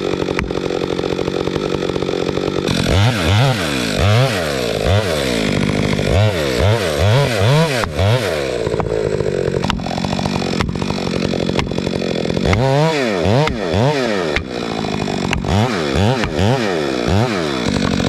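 Chainsaw running in the back cut of a big fir, its engine speed rising and falling about once a second, while the poll of an axe pounds the felling wedges in the cut with sharp, repeated strikes. This is wedging over a stubborn tree that won't tip.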